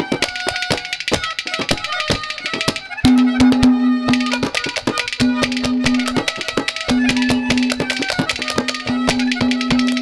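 Instrumental interlude of Haryanvi ragni folk music: fast hand-drum strokes under a melody instrument playing long held notes.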